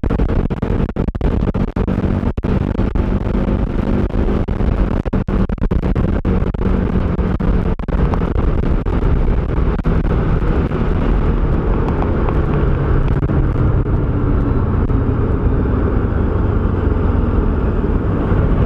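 Motorcycle engine running at road speed with wind rushing over the microphone. The wind noise eases after about ten seconds as the bike slows, and the engine hum settles lower near the end.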